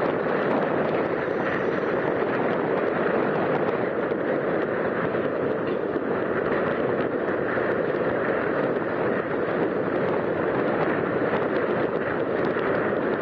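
Steady roadside traffic noise, an even rumble with faint scattered clicks and no let-up.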